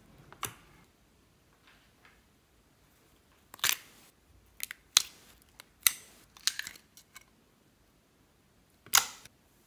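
Small hard plastic slime containers being handled: sharp clicks and snaps as the lids are popped open and the cases knocked. There is one click near the start, a quick run of them in the middle, and a loud snap near the end.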